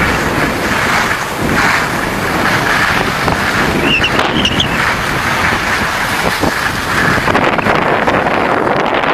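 Steady rushing noise of wind on the microphone mixed with skis sliding and scraping over packed snow while skiing down a groomed slope.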